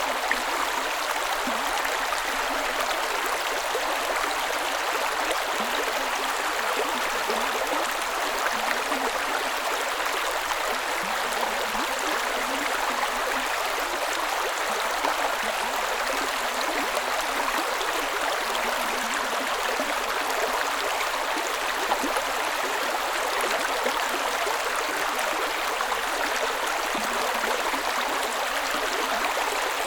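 A creek's water running and splashing over rocks in a steady, unbroken rush, with small bubbling and gurgling detail.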